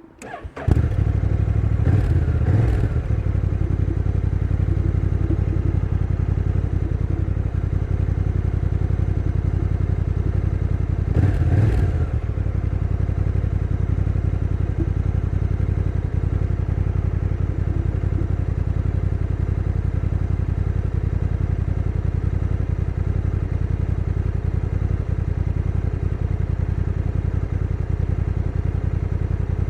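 Honda NT1100's 1,084cc liquid-cooled parallel-twin engine starting about half a second in, then idling steadily, revved briefly about two seconds in and again about eleven seconds in.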